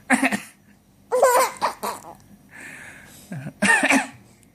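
A baby laughing in three high-pitched bursts, set off by a man's coughing; a short low cough comes just before the last burst, with softer breathy sounds between the laughs.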